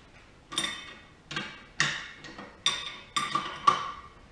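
Steel hand tool clinking on the tubing bender's bolts and steel frame as two bolts are loosened: about six sharp metallic clinks, each ringing briefly, roughly every half second.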